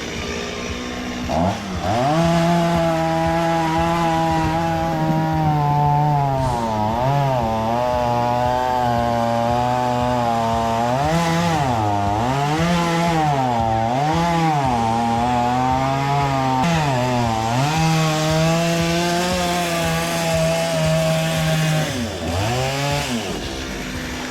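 Chainsaw cutting into a coconut tree trunk: it revs up about two seconds in and runs at high revs, its pitch repeatedly dipping and recovering as it works through the cut. Near the end it drops back, with one more short rev.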